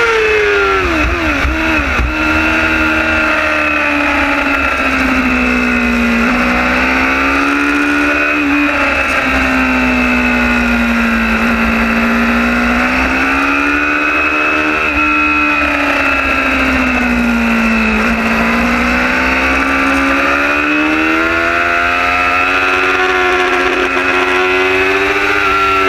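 Race superbike engine at speed, heard from a camera mounted on the bike. The revs drop steeply in the first two seconds, then rise and fall in long slow swells several times through the corners. Wind rumbles on the microphone underneath.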